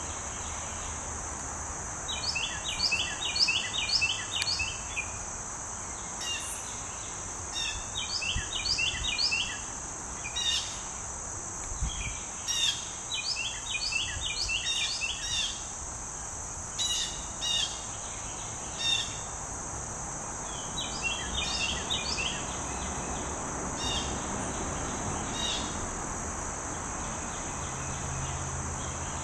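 A steady, high-pitched chorus of insects throughout, over which a songbird sings four phrases of quick repeated notes spaced several seconds apart, with short single calls in between. Near the end only the insects are left.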